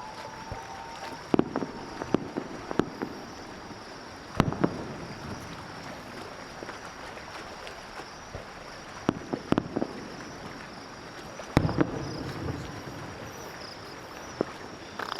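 Aerial fireworks going off: sharp bangs and crackling pops come in clusters, the loudest about four seconds in and again near twelve seconds, over a steady hiss. A whistling firework's rising whistle fades out at the very start.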